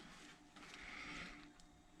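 Near silence: faint room tone, with a soft noisy rustle around the middle.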